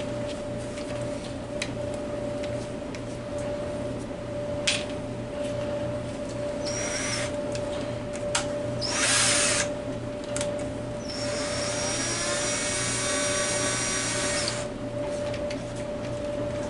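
Power drill running in two short bursts, then one longer run of about three and a half seconds that climbs in pitch as it spins up, with a few sharp knocks between. A steady hum sits underneath.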